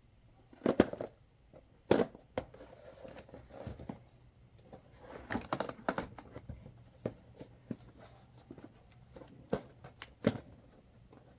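A parts box being opened and its packaging handled: scattered sharp knocks and clicks with tearing and crinkling rustles in between.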